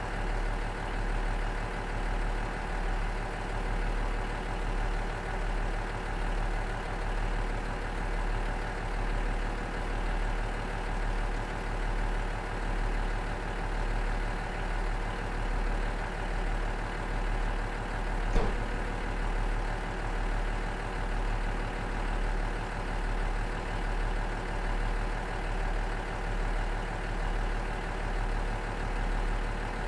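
Cummins DMF14HZ diesel engine of a JR KiHa 47 diesel railcar idling steadily, its level rising and falling in a slow, regular beat. A single short click about eighteen seconds in.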